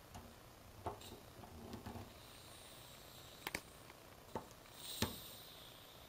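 A handful of sharp clicks and knocks as a red-handled brass gas ball valve on a copper line is handled and turned, the loudest about five seconds in, with a soft hiss in between.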